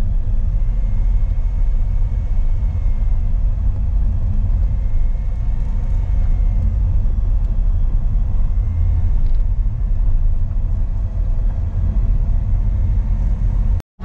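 A car's cabin noise while driving on an asphalt road: a steady low rumble of the engine and tyres. The sound drops out for a moment near the end.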